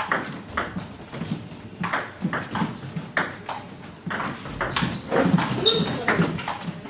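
Table tennis doubles rally: the ball clicking quickly back and forth off the bats and the table, with a brief high squeak about five seconds in.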